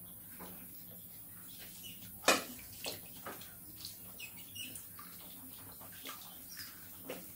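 Water splashing and sloshing as rats swim and scrabble in a shallow inflatable paddling pool full of plastic balls, with one sharp, louder hit about two seconds in and a few short high chirps.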